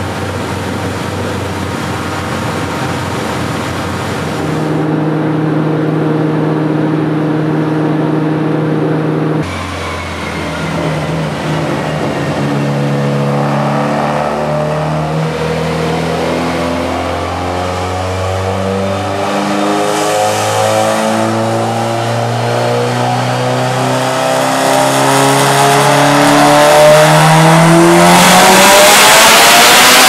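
Turbocharged Mitsubishi Evo 8 four-cylinder on a chassis dyno: a steady engine note for the first several seconds, then a wide-open fourth-gear pull with the pitch climbing slowly and then faster toward about 7,500 rpm. It grows louder, with a rush of noise near the end.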